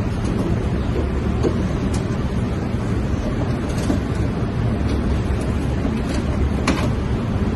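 Steady rumbling background noise, heaviest in the low range, with a few faint clicks.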